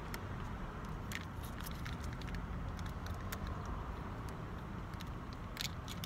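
Close-up eating sounds: a McChicken sandwich being chewed, with scattered sharp mouth and wrapper clicks, over a steady low background rumble.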